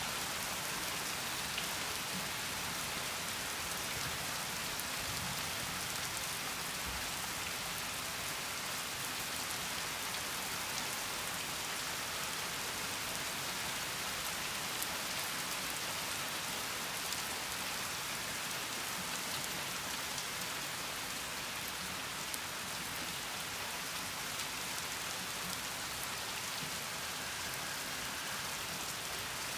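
Steady rain falling on roofs and surfaces outside an open window, with a few sharper single drops tapping close by. No thunder is heard.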